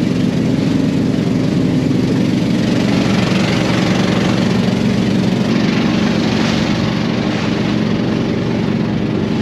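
A small wooden boat's engine running steadily under way, with water rushing and splashing along the hull.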